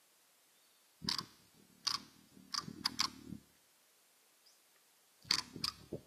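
A hummingbird at the feeder giving a series of short, sharp clicking chips close to the microphone: five over about two seconds with a low rumble of wing and contact noise beneath them, then two more near the end.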